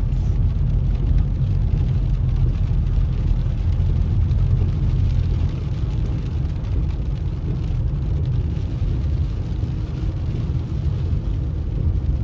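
Steady low road and engine rumble inside a car driving on wet pavement, with the windshield wipers running.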